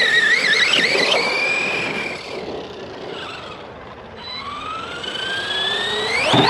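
Arrma Big Rock V3 RC monster truck's electric motor whining: the pitch wavers up and down with throttle blips for about two seconds, then fades. From about four seconds in a long, steadily rising whine builds as the truck accelerates, and it cuts off suddenly near the end.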